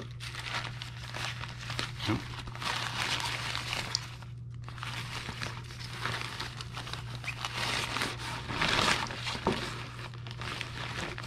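Black nylon Starlink dish backpack sleeve being unfolded and spread out by hand, its fabric rustling and crinkling irregularly, with a short lull about four seconds in.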